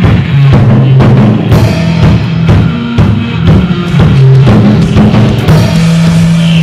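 Rock band playing: a Tama drum kit keeps a steady beat under low, held electric guitar notes.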